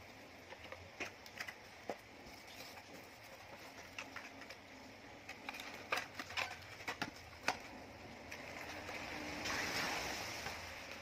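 Handling noise from a wireless earbuds case and its packaging: scattered small clicks and taps of plastic and cardboard, with a rustle swelling and fading about nine to ten seconds in.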